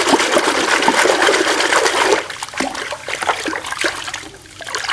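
Water running and splashing over a toy Spinosaurus as it is washed, heavy for about two seconds, then thinner and patchier, nearly stopping just before the end.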